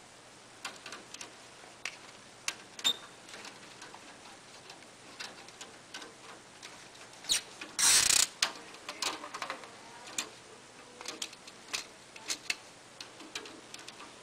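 Scattered small clicks and taps of hands fitting wires to a circuit breaker at an open breaker panel, with one louder, half-second rustle about eight seconds in.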